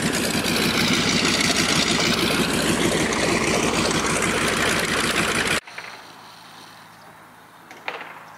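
Aircraft engine noise, loud and steady with a slow sweep as it passes, cut off abruptly about five and a half seconds in; after it only faint outdoor ambience with two soft knocks near the end.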